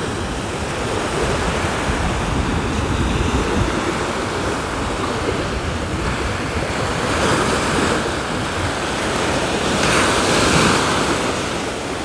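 Sea waves washing onto the shore, with wind rumbling on the microphone; the surf swells louder about seven seconds in and again near ten seconds.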